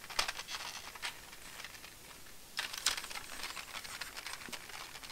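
Light plastic clicks and rattles of a LEGO bus model being handled and its hinged side opened, with a busier run of clicks about two and a half seconds in.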